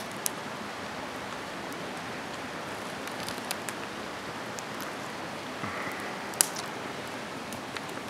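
Steady rushing of a mountain river, with a few sharp crackles from a small campfire, the loudest about a third of the way through and near the end.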